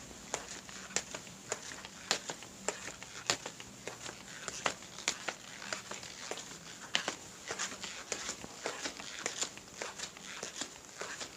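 Footsteps walking at a steady pace, roughly two steps a second, each step a sharp, crisp impact with smaller scuffs between.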